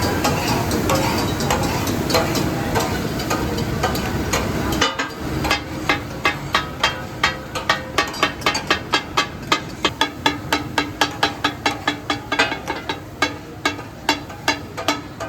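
A steady din for about five seconds, then rapid rhythmic metal clanging of steel spatula blades chopping and tossing meat on a flat iron griddle, about three strikes a second: the katakat chopping of offal on the tawa.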